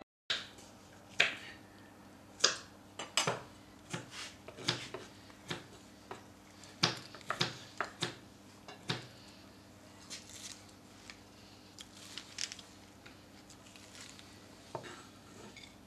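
Cooking utensils clinking and knocking against cookware in irregular sharp clacks, up to two or three a second, thinning out after about nine seconds.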